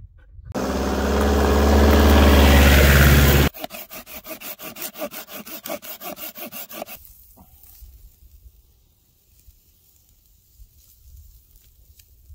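A loud steady drone for about three seconds that cuts off abruptly, then a hand saw cutting through a dead log in quick even strokes, about four a second, for some three seconds. Faint crackling of a wood fire follows.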